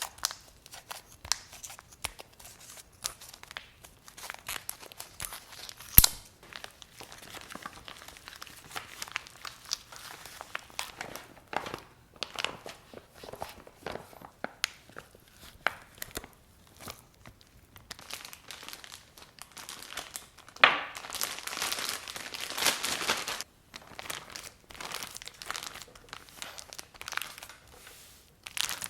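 Food packaging crinkling and rustling as it is handled, in a run of small crackles and clicks, with one sharp click about six seconds in. From about twenty-one seconds there is a louder, continuous crinkle lasting nearly three seconds.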